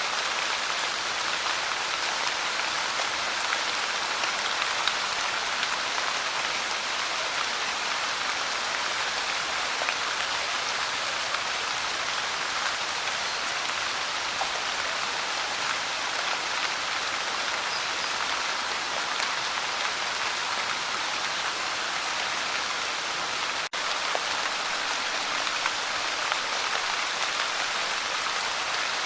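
Light rain falling steadily, a dense patter of drops, with a momentary break about three-quarters of the way through.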